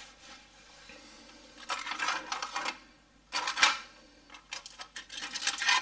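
Metal tools clinking and rattling in three short bouts, the last one longest.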